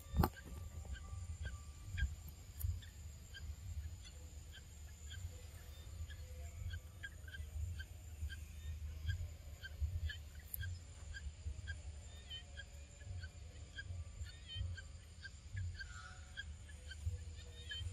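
Forest ambience: a short chirping call repeating steadily about two times a second, over a low fluctuating rumble, with a single sharp click at the very start.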